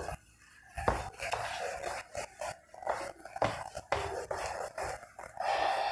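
A cloth duster wiped over a whiteboard in a series of irregular rubbing strokes, erasing the marker writing.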